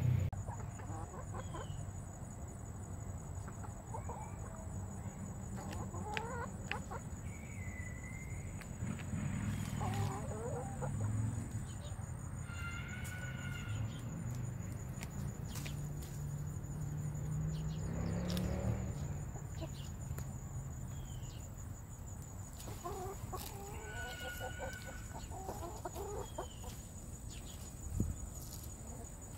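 Chickens clucking, with short calls coming every few seconds, some single and some in quick runs. A steady high-pitched whine runs underneath, and there is one sharp click near the end.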